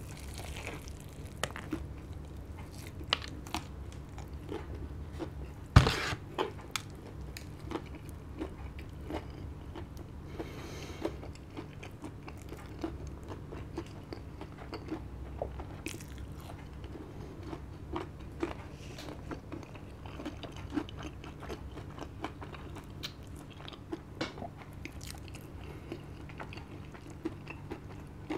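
Close-up eating sounds: crunchy bites and chewing of a KFC Double Down, crispy fried chicken fillets used in place of a bun, with many small crackles and wet chewing clicks. One much louder sharp thump comes about six seconds in.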